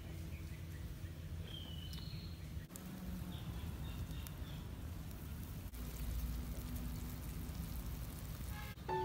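A pot of beef and onion soup boiling hard over a wood fire, with a steady bubbling and a low rumble, and a few faint high chirps in the first few seconds.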